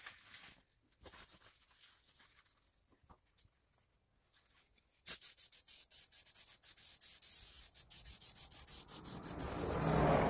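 Aerosol can of WD-40 spraying onto a steel wheel rim, starting about five seconds in as a quick string of short hissing spurts.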